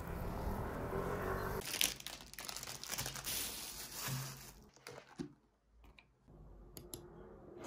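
Thin plastic bag crinkling as bread is unwrapped from it, for about three seconds from near the two-second mark, after a low steady background hum.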